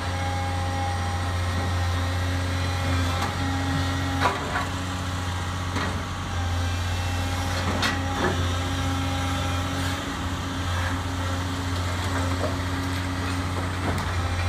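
Doosan DX225LC excavator's diesel engine running steadily while its demolition grab pulls at the brickwork. A few sharp knocks and cracks of masonry and rubble break over it, the loudest about four seconds in.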